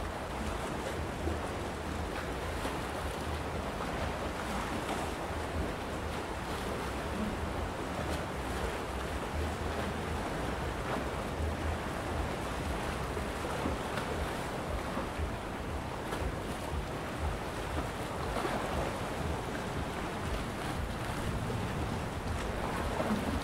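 Small sea waves washing against shoreline rocks, swelling every few seconds, over a low rumble of wind on the microphone.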